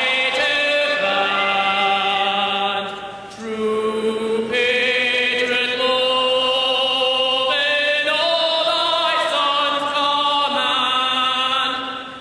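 Male soloist singing a national anthem in a reverberant hockey arena, with the crowd singing along. Held notes move from phrase to phrase, with a short break for breath about three seconds in.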